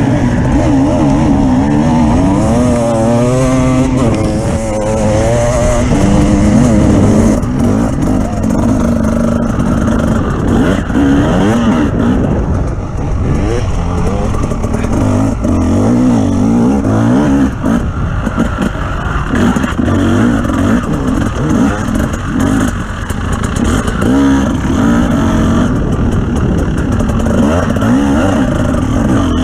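An off-road vehicle's engine running under constantly changing throttle, its pitch rising and falling again and again.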